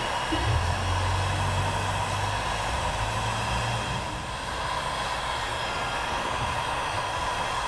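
Electric heat gun running steadily, its fan blowing an even rush of hot air with a faint whine, as it shrinks heat-shrink tubing onto a battery cable splice.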